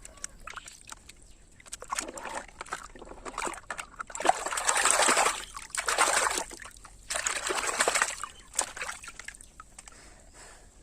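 Water splashing and trickling over a plastic toy horse cart as it is washed by hand, coming in several bursts of a second or so.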